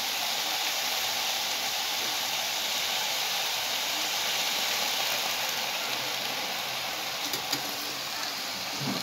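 Cut vegetables (squash, chayote, string beans, okra) sizzling steadily in hot oil in a pan on a gas burner, with a few light clicks about seven seconds in.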